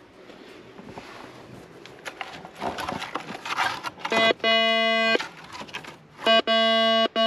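A hand tool scraping and knocking in stony soil. Then a metal detector's steady, buzzy target tone sounds for about a second, stops, and comes again near the end as the search coil passes over metal in the dug hole.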